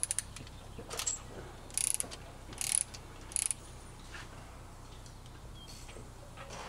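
Hand ratchet clicking in short bursts, about one a second for the first three and a half seconds and then only faintly, as it backs out a differential plug.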